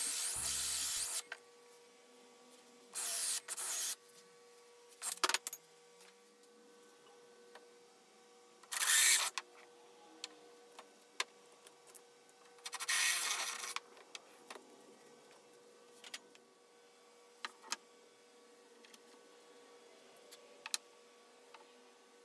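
Cordless drill with a hole saw cutting into a wooden door for a lockset, the cut stopping about a second in. Then several short bursts of drilling a few seconds apart, with scattered clicks and taps from handling tools and parts in between.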